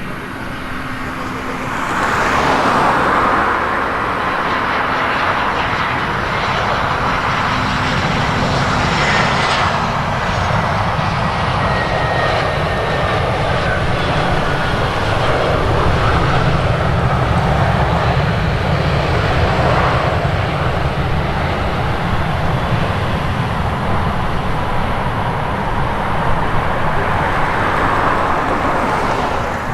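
Airliner's engines running loud and steady as the aircraft passes, a low rumble under a rushing noise. A thin high whine slowly falls in pitch over the first half.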